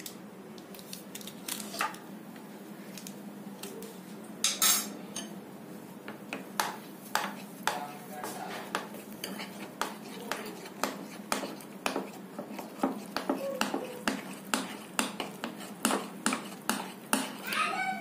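Steel spoon clinking against a glass bowl while stirring thick dhokla batter with Eno just mixed in. Sparse clinks at first, then about two a second through the second half.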